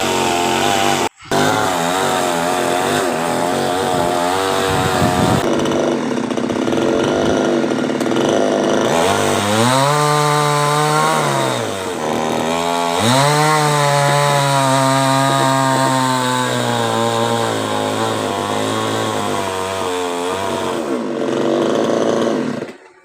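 Chainsaw running hard while cutting a coconut tree. Its pitch dips about ten seconds in and comes back up about a second later, then it runs steadily until it cuts off sharply near the end.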